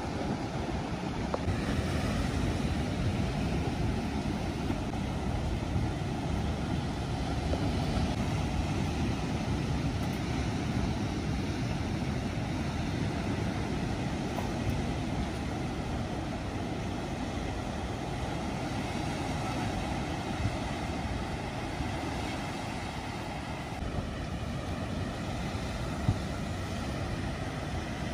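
Strong coastal wind buffeting the microphone as a steady low rumble, mixed with the rush of surf from the sea below. One sharp knock sounds near the end.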